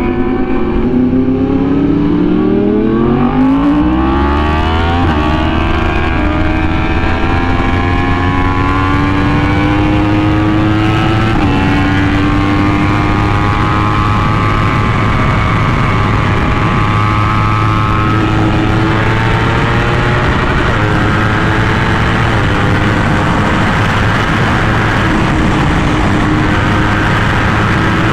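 Yamaha R1M's crossplane inline-four through an SC Project exhaust, accelerating hard: the engine note climbs steeply for about five seconds, drops at an upshift, then holds a steady high-revving note at speed. Heavy wind rush runs under the engine once the bike is moving fast.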